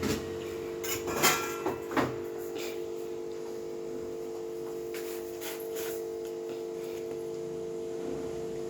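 A few clicks and light taps in the first two seconds, as turmeric powder is taken from a spice container, over a steady hum of several held tones.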